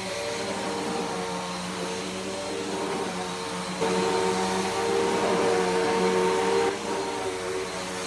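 Bissell PowerForce Helix Turbo upright vacuum cleaner running as it is pushed over a fabric sheet, a steady motor hum and whine over a rushing hiss. A little before halfway it suddenly gets louder for about three seconds, then drops back to its earlier level.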